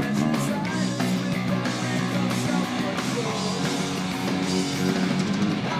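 Peavey Millennium 4 four-string electric bass being played, with full-band rock music around it, as in a bass play-along over a backing track.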